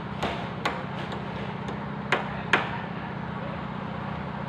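Several sharp hammer blows at irregular intervals from roofing work, the loudest about two and a half seconds in, over a steady low hum.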